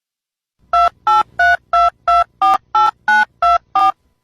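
Telephone touch-tone keypad being dialed: ten short two-note beeps, about three a second, after a brief silence.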